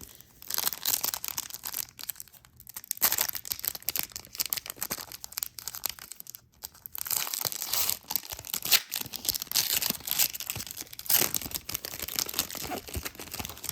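Trading card pack wrappers being torn open and crinkled by hand: a dense run of crackling and tearing, with brief pauses about three and six seconds in.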